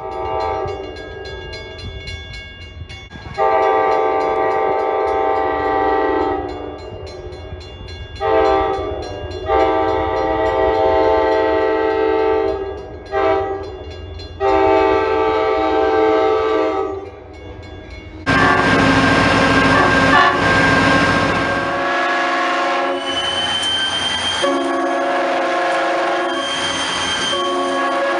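Train locomotive air horn blowing the long, long, short, long grade-crossing signal over the low rumble of the train. After a cut about 18 seconds in, another train horn sounds almost without a break over the rush of a train passing close.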